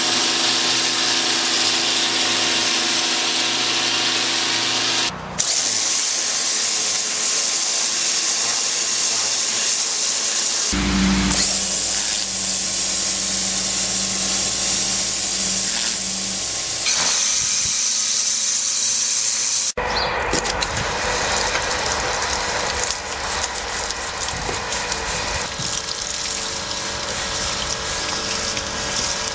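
Nilfisk pressure washer running, its high-pressure water jet hissing steadily from a Powerspeed rotary nozzle against brick and paving. The sound changes abruptly at several cuts. In the last third, water sprays through a wash brush.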